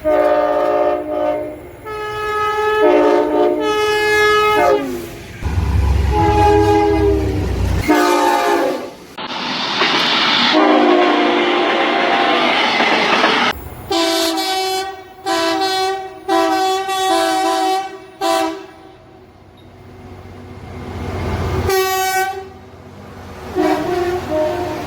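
Train air horns sounding a series of blasts as trains pass, each multi-note chord dropping in pitch as the train goes by (the Doppler effect). Between horn blasts come a deep engine rumble and a long rush of wheels on rail.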